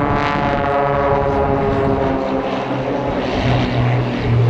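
Aircraft engine droning overhead, a steady hum whose row of even tones fades over the first two seconds, with a low hum growing louder near the end.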